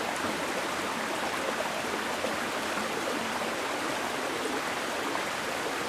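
Small mountain stream flowing over rocks: a steady rush of water.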